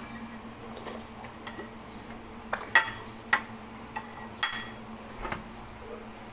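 Eating utensils clinking against a bowl or plate: a string of sharp, ringing clinks at uneven intervals, loudest about three seconds in.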